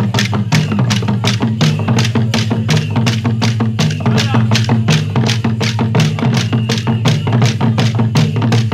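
Acholi larakaraka dance music: drums and sharp, wooden-sounding strikes keep a fast, steady beat, with voices over it.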